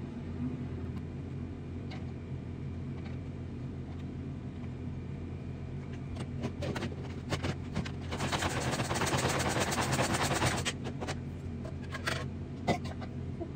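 Kitchen items being handled: scattered clicks and knocks, then a dense rapid rattling lasting about two and a half seconds, over a steady low hum.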